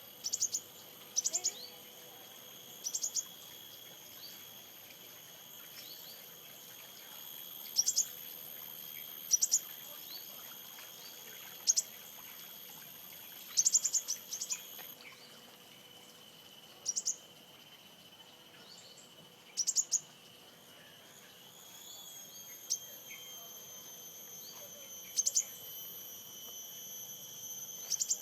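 Sunbird giving short, very high, sharp chirps, often two to four in quick succession, every one to three seconds, over a steady high-pitched insect drone.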